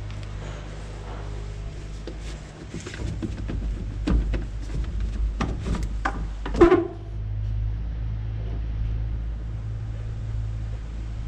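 A series of sharp clicks and knocks, the loudest about six and a half seconds in, over a steady low hum.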